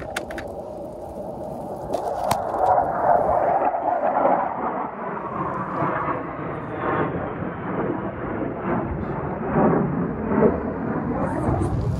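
Airplane passing overhead: a steady roar that swells over the first few seconds and then slowly falls in pitch.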